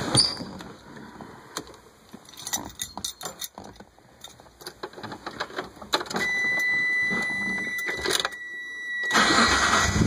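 Keys and handling clicks, then a steady high tone, then the car's engine is cranked and starts about nine seconds in. The engine has a known lifter tick.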